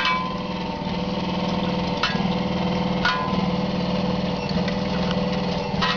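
Small solar-powered electric motor driving a bucket-chain water lift, humming steadily, with a sharp click from the chain and its buckets every second or few.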